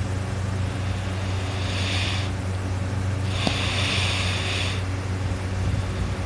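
A sleeping person breathing heavily, two airy hissing breaths about two and three and a half seconds in, the second one longer, over a steady low hum.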